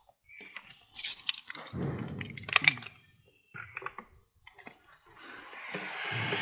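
Several sharp clicks and rustling handling noises. About five seconds in, a heat gun switches on and blows steadily, rising in level, for heat-forming the window tint film.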